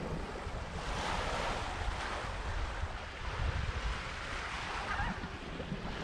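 Wind buffeting the microphone in uneven low gusts, over small waves washing on a lake beach.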